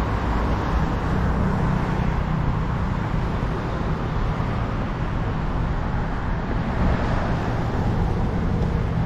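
Street traffic: motor vehicle engines running with a steady hum and the noise of passing road traffic.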